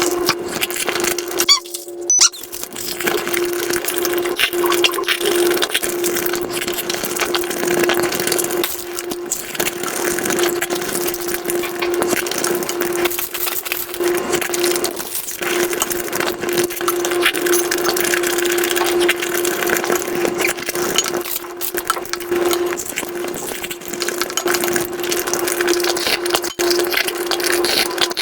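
Mukbang eating sounds played at five times speed: a dense, rapid run of crunching, chewing and clicking mouth noises over a steady hum.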